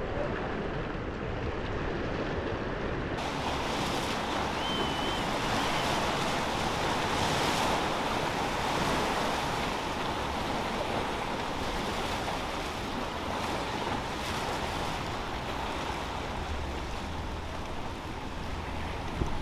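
Ocean surf and churning whitewater, a steady rushing with some wind on the microphone.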